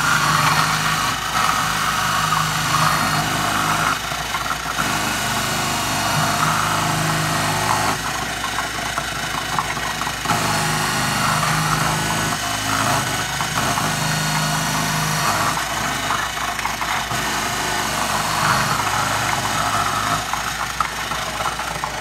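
KitchenAid 14-cup food processor running on its shredding disc, its motor humming steadily while carrots pushed down the feed tube are shredded with a rasping noise that comes and goes.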